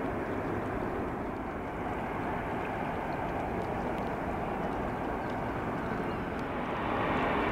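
Distant jet-engine noise of an Airbus A380's four Rolls-Royce Trent 900 turbofans on the runway, a steady rush that grows louder near the end.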